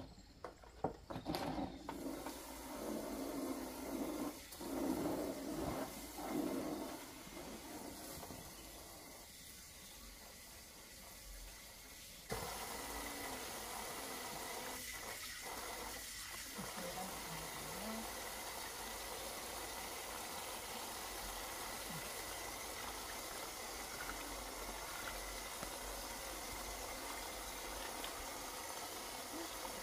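Water running steadily, as from a tap, starting abruptly about twelve seconds in, after a few knocks and handling sounds.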